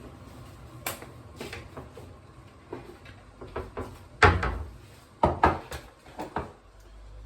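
A series of irregular knocks and clunks, like things being handled, with the loudest about four seconds in.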